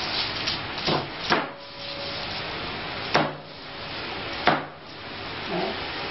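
Cleaver striking a cutting board in four sharp, unevenly spaced chops, over a steady background hiss.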